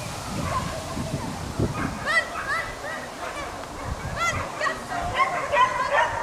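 A dog yipping in short, high-pitched barks, several a second, starting about two seconds in and coming thicker toward the end.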